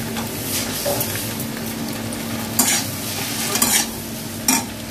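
Boiled potato rounds frying and sizzling in oil and masala in a kadhai while a metal spatula stirs them. The spatula scrapes against the pan three times, about two and a half, three and a half and four and a half seconds in.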